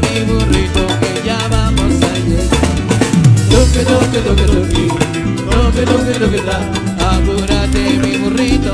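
Upbeat Latin-style evangelical praise music (alabanza) played by a band, with drum kit and bass keeping a steady dance beat.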